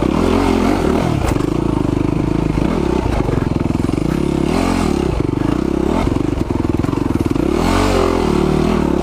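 Yamaha WR450F single-cylinder four-stroke dirt bike engine under way on a trail, its revs rising and falling several times as the throttle is worked, highest at about five and eight seconds in.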